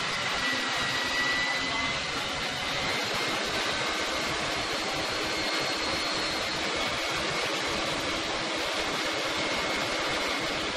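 Truck-mounted boom crane running: a steady mechanical noise with a faint high whine held over it.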